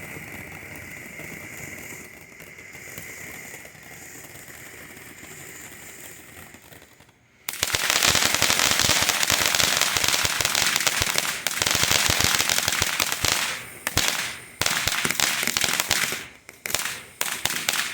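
World Class Fireworks ground fountain spraying with a steady hiss, then about seven seconds in it breaks into loud, dense crackling, a rapid stream of sharp pops that runs on with a few brief gaps near the end.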